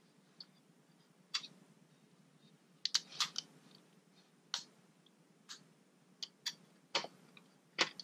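Irregular small clicks and taps from fingers handling the hard drive and its fittings inside an opened Mac mini, with a quick cluster about three seconds in and more toward the end.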